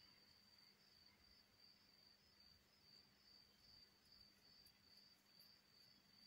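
Near silence: room tone with a faint, high-pitched, evenly pulsing trill and a low steady hum.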